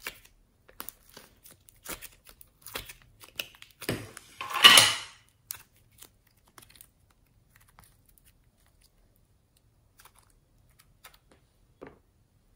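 Small plastic cups clicking and crinkling as soft foam clay is pulled out of them and handled, with one louder, longer rustling squish a third of the way in; after that only a few faint clicks.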